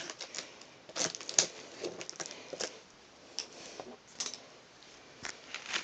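Scissors cutting through heavily wrapped packaging: scattered short snips and crinkly rustles at irregular intervals, with brief pauses between.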